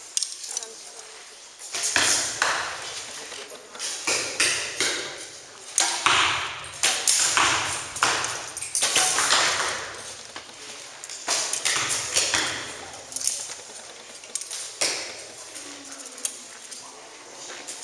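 Compound and recurve bows shot one after another along a crowded shooting line: sharp string snaps and arrow hits in quick succession, sometimes several in a second, each ringing briefly in the hall. The shots start about two seconds in and thin out near the end.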